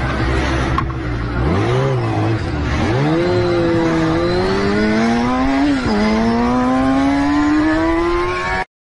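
Sport motorcycle engine idling, blipped once, then pulling away with revs climbing steadily. The revs drop sharply at an upshift about six seconds in and climb again until the sound cuts off abruptly near the end.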